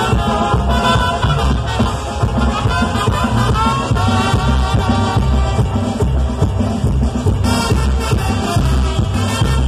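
Live band with a brass section of trumpets, trombones and saxophone playing loud, amplified Latin dance music over a steady bass beat.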